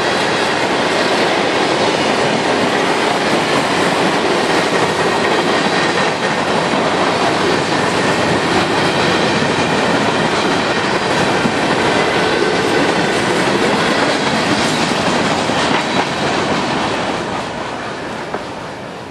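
Freight train cars rolling past close by: the steady rumble and clatter of steel wheels on the rails, with a faint high ring. The sound falls off over the last couple of seconds.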